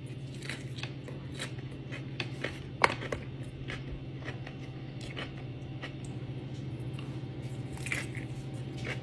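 Close-up mukbang eating of a cheeseburger: biting and chewing with scattered short crunchy clicks, the sharpest about three seconds in, over a steady low hum.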